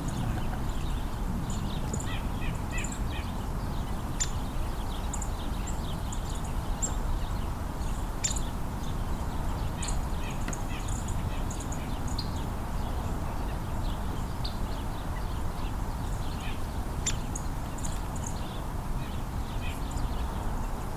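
Small winter songbirds calling: many short chips and high notes scattered throughout, over a steady low background rumble.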